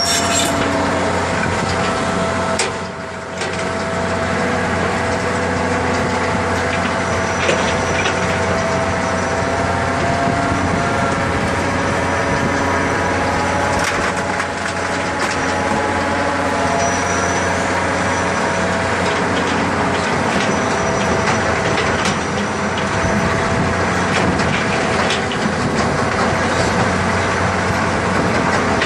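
Large earth-digging machine working: a loud, steady mechanical din with a steady whining tone and a dense grinding noise, broken by scattered sharp knocks. It dips briefly about three seconds in.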